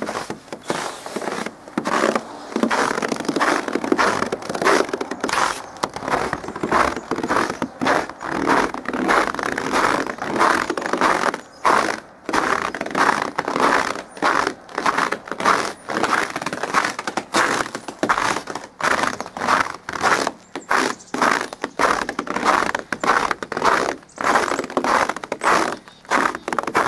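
Footsteps crunching in snow: steady walking, about two crunching steps a second.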